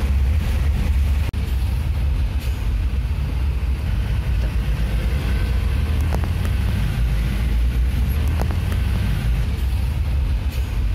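Steady low rumble of a vehicle's engine and road noise heard from inside the cab, with a few faint ticks over it.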